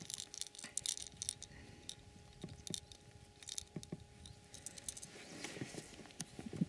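Scattered small clicks, knocks and rustles of handling a freshly caught pike with a hard plastic jerkbait hooked in its mouth.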